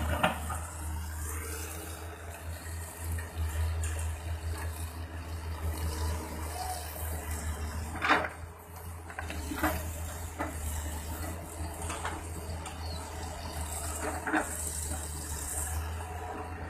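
Caterpillar 320C excavator and a dump truck at work: steady low diesel rumble, with a few short knocks and clanks, the loudest about eight seconds in.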